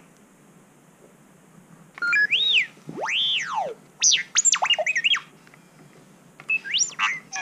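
Sphero R2-D2 toy droid beeping and whistling in R2-D2's electronic voice: about two seconds in, a run of quick whistles sweeping up and down in pitch, then a pause and a few more whistles near the end.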